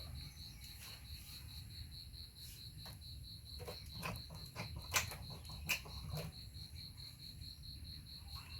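Insects chirping: a steady high-pitched trill pulsing about five times a second, with a handful of sharp clicks or knocks in the middle, the loudest two a little under a second apart.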